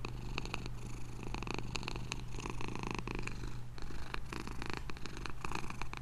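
Domestic cat purring steadily.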